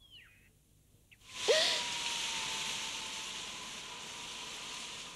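A gust of wind sweeps in suddenly about a second in, a rushing hiss that slowly dies down, with a thin steady tone under it. A few bird chirps are heard at the very start.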